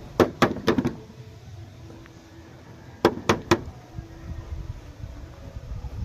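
Sharp clicks in two quick runs: four within the first second, then three more about three seconds in.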